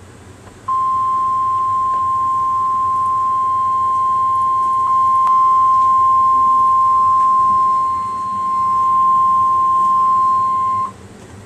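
NOAA Weather Radio warning alarm tone: a single steady, high 1050 Hz beep held for about ten seconds, the signal that a warning broadcast follows, here a tornado warning. It sags briefly in level about eight seconds in.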